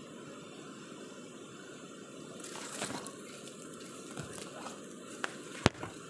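Steady outdoor rushing background noise, with a few sharp clicks near the end from the handheld camera being moved.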